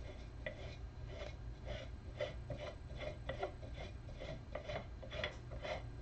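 Hands twisting and working the plastic housing of an Obel Junior coffee grinder to take it apart: a quick series of short rasping scrapes, plastic rubbing on plastic, about two or three a second.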